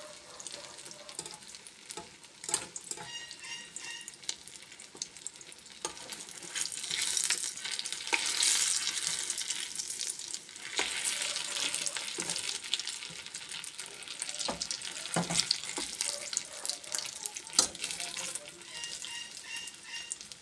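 Food frying in hot oil in a pan: a steady sizzle that swells louder about a third of the way through, with occasional sharp clicks of a utensil against the pan.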